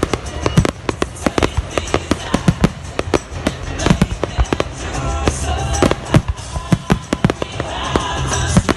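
Fireworks going off in quick, irregular succession, many sharp bangs and crackles close together, over the music of a pyromusical show.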